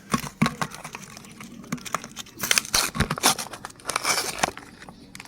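Crisp wafer ice cream cones being crushed in a meat grinder: irregular crunching and cracking, with denser bursts in the middle and again near four seconds.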